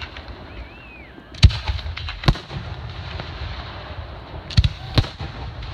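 Aerial firework shells bursting in a display: a sharp bang about one and a half seconds in, another just under a second later, then a quick pair and a fourth bang near the end.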